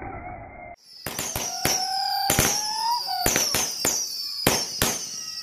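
Whistling fireworks at real speed from about a second in: a rapid string of sharp bangs, about a dozen, with high whistles that slide down in pitch. Just before that, the same whistles are heard slowed down, as low, drawn-out, muffled tones.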